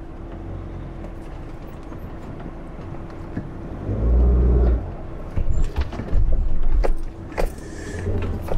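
Camper van creeping over loose rock in a steep, dry stream bed, its engine humming steadily. Heavy thuds from the body and suspension come about four seconds in, and a run of knocks and sharp clicks follows over the next few seconds.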